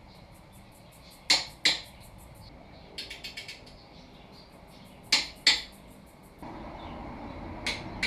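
Sharp knocks of tools on car suspension parts, in two pairs of loud strikes with a quick run of lighter clicks between them. A steadier background noise rises about six seconds in, and another knock comes near the end.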